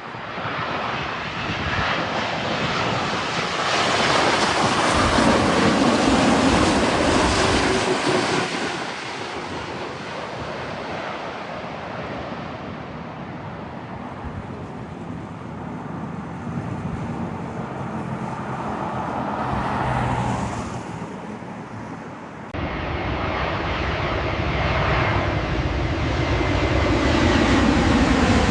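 Airliner jet engines passing close by: a loud rushing roar swells to a peak with a falling pitch as the plane goes past, then fades. The sound breaks off suddenly about three-quarters of the way through, and another aircraft's roar builds louder toward the end.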